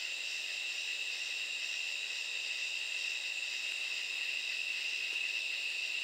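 A chorus of katydids calling: a dense, unbroken insect chorus of several high-pitched layers, steady throughout.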